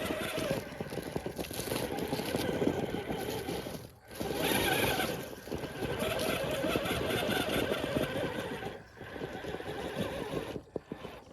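Electric motor and gear drivetrain of a 1/6-scale RC rock crawler whining as it drives over rough ground. It stops briefly about four seconds in and again near nine seconds, then dies away near the end.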